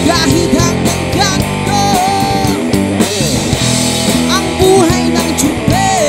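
Rock band playing live: electric guitar, bass guitar and drums, with a male voice singing.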